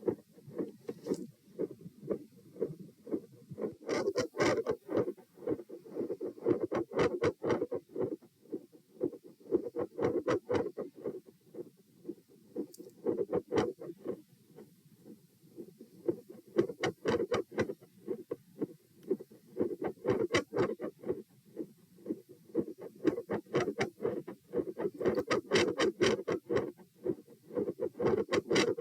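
Heart sounds at a fast rate of about 120 beats a minute, the S1 and S2 beats knocking in steady rhythm. They swell loud and then fade to very quiet stretches over and over, showing an extreme variation in the intensity of S1 and S2.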